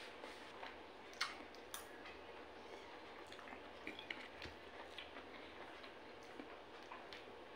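Faint eating sounds: scattered light clicks of a metal fork and spoon against a plate, the sharpest about a second in, with the small sounds of chewing over a low steady background hum.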